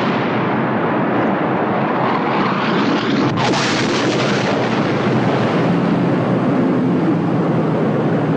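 Film sound effect of a nuclear explosion: a long, steady rush of blast noise with a short sharp crack a little over three seconds in.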